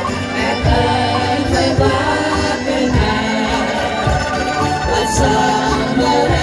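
A woman singing a song with an angklung ensemble accompanying her, the bamboo angklung shaken in rattling chords, with a low beat underneath.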